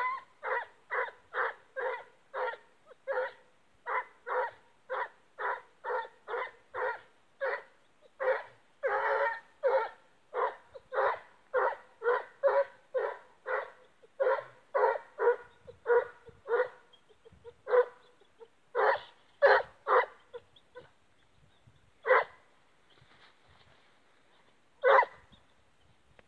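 Lucerne hound giving tongue on a scent trail: a steady run of baying barks, a little under two a second, that thins after about two-thirds of the way to a few scattered barks near the end.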